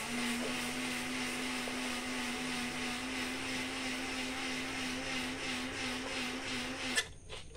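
Lancer car engine running steadily on its freshly restored carburetor, with the air cleaner removed: a steady hum with a hiss over it. It cuts off abruptly about seven seconds in, and a click follows.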